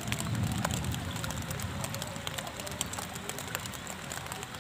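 Heavy rain falling on a river: a steady hiss with many separate drop ticks close by. A low rumble under it fades in the first second or so.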